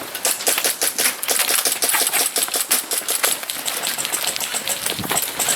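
Airsoft guns shooting: a fast, irregular string of sharp clicks and snaps, several a second, likely from more than one gun.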